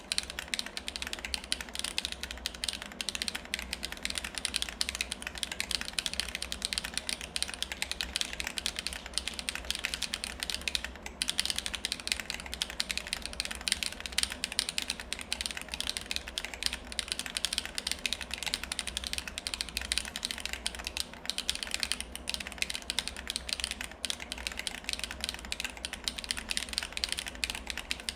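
Continuous fast typing on a Vault35 mechanical keyboard with factory-lubed HMX Cheese switches, DSS keycaps and a 4.9 mm ABS plate: a dense stream of key clacks with a short pause about 11 seconds in. A steady low background hum runs under it.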